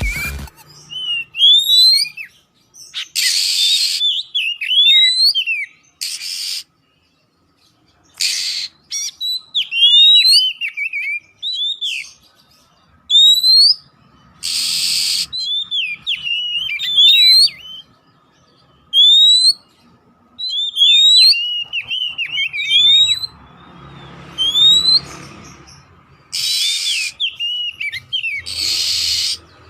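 Oriental magpie-robin of the black-bellied 'poci' form singing: quick runs of clear whistled notes sliding up and down, broken every few seconds by short harsh rasping notes.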